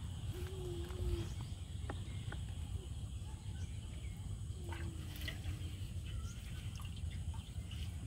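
Outdoor ambience: a steady low rumble, with two short, low animal calls (about half a second in and again around five seconds in) and a few light clicks.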